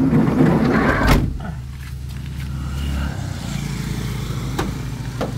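Sliding side door of a Nissan NV350 van rolling along its track and slamming shut with one sharp clunk about a second in. A couple of light clicks follow near the end.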